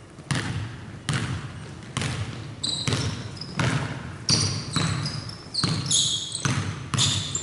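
Basketball dribbled on a hardwood gym floor, a bounce about every three-quarters of a second, each echoing around the hall. Sneakers squeak on the floor from about three seconds in.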